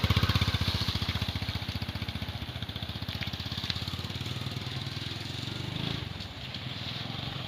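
A small engine running with an even, rapid pulse, loudest at first and easing lower over the first couple of seconds before settling steady.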